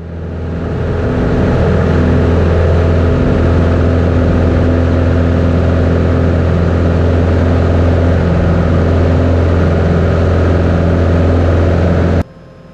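Cockpit engine and propeller drone of a single-engine light airplane at takeoff power during the takeoff and climb-out: a loud, steady low hum with a stack of steady tones above it. It swells over the first second or so and cuts off suddenly near the end.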